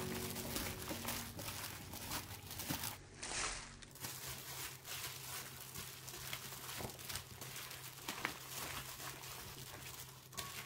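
A hand in a thin plastic glove tossing cubed radish in red pepper seasoning with small green onions in a stainless steel bowl: irregular wet squishing and crinkling of the glove, for radish kimchi.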